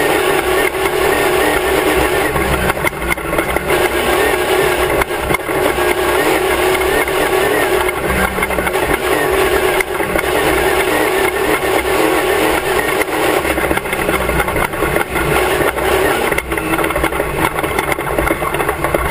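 Class 1 off-road race car's engine running hard at race speed, with frequent short knocks and rattles from the car over rough ground.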